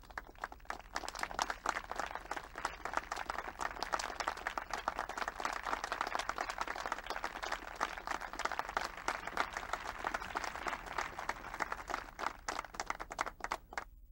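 Audience applauding: many hands clapping together in a dense, steady sound that builds in over the first second and cuts off suddenly near the end.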